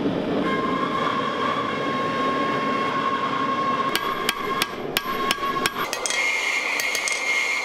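A gas forge roars steadily. About four seconds in, a hammer starts striking the glowing steel of a drill bit being forged into a knife blade on an anvil, about three blows a second, each with a bright metallic ring.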